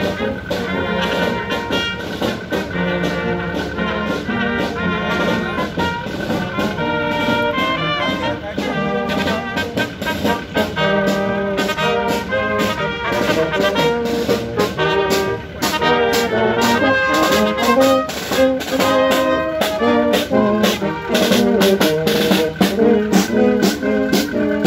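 A brass band playing a tune over a steady beat.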